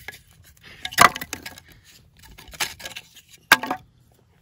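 Split pine firewood being handled: three sharp wooden knocks and cracks, about a second in, near the middle and shortly before the end.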